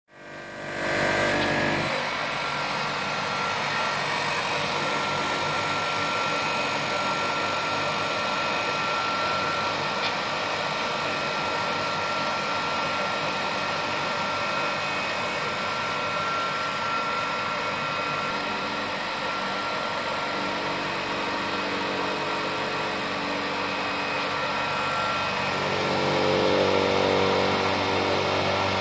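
Peanut butter colloid mill running in recirculating mode, its electric motor and grinder giving a steady mechanical hum with a thin high whine. It grows slightly louder near the end.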